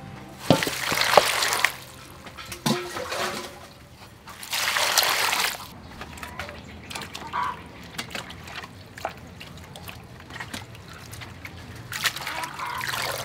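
Water splashing and trickling in a metal bowl as chopped vegetables are dropped in and stirred by hand, in three short bursts with small knocks between.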